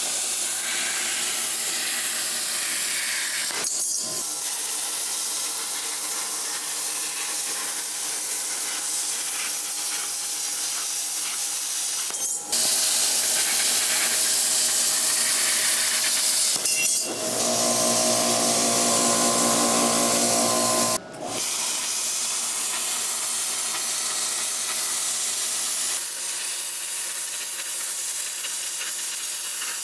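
Plasma cutter's arc hissing steadily as the torch cuts thin steel plate, running on the machine's built-in compressor air. The hiss drops out briefly a few times.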